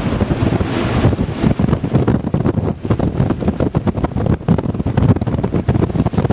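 Strong sea wind buffeting the microphone: a constant low rush broken by irregular gusts, over the sound of rough open sea.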